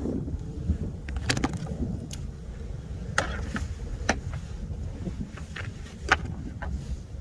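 Irregular sharp clicks and knocks of hand tools and battery hardware being handled under the hood, over a steady low rumble.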